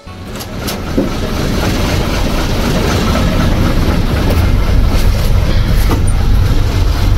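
Ashok Leyland truck's diesel engine idling, heard from inside the cab as a steady low rumble, while it builds air pressure for the brakes.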